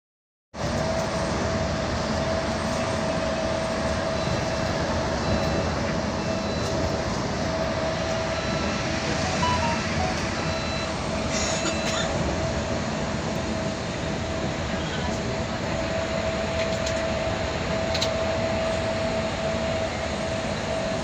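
Steady road and engine noise of a moving bus heard from inside the cabin, with a steady hum over it. It cuts in about half a second in after a moment of silence and stays even, with a few faint ticks.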